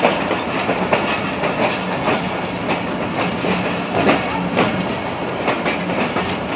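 Pakistan Railways passenger coaches rolling past close by as the train pulls into the station: a steady rumble of the wheels on the track with irregular knocks as the wheels pass over rail joints.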